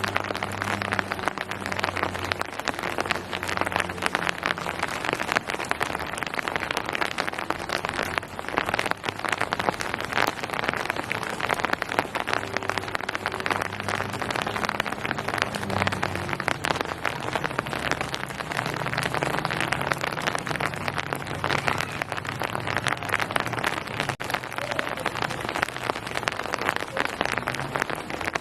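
Steady rain falling on surfaces: a dense, even patter of drops. Underneath, a faint low hum comes and goes.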